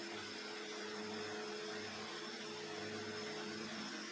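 Shop vacuum running steadily, a low hum over an even hiss.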